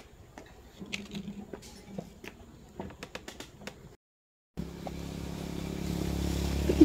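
Faint scattered clicks and rustles, then, after a brief break to silence, a steady low engine hum from a motor vehicle that grows gradually louder, with one sharp click near the end.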